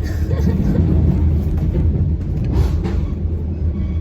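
Train running, heard from inside the carriage: a steady low rumble with a brief clatter about two and a half seconds in.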